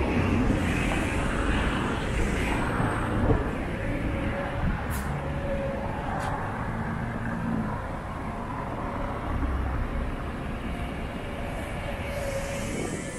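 Steady roar of passing vehicle traffic on a busy city street, loudest at the start and easing off slightly.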